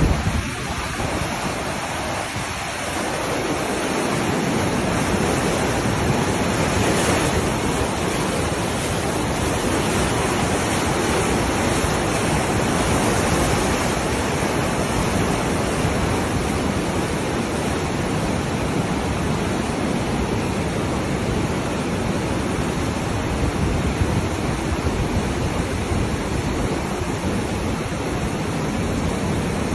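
Floodwater rushing, a steady loud hiss of flowing water that fills out in the low end a few seconds in.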